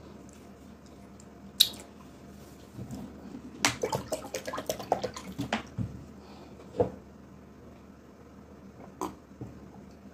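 Close, wet eating sounds: sticky chewing and lip-smacking on a mouthful of yellow garri (eba) with slimy ogbono soup, eaten by hand. There is a single click early on, then a quick run of wet smacks and clicks for about two seconds in the middle, and a soft knock and a click later.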